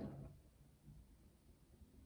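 Hoover VHD 9163 ZI washing machine in its main wash: the sound of the drum tumbling the load dies away in the first half-second. Near silence follows as the drum rests between turns.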